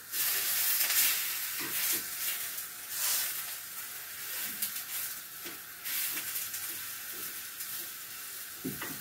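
Food frying in hot oil in a frying pan: a steady sizzle that swells louder about a second in, around three seconds and again near six seconds.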